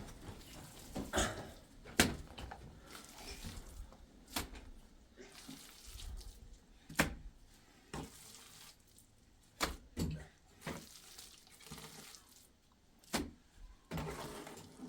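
Irregular sharp clinks and knocks, about a dozen spread unevenly over a faint background, like things being handled and set down.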